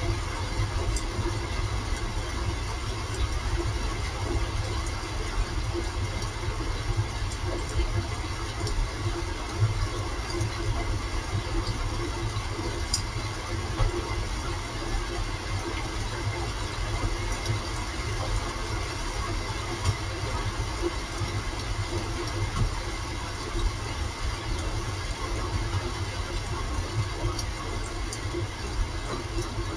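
Steady rain falling, an even hiss with a strong low rumble and a few faint ticks, unchanging throughout.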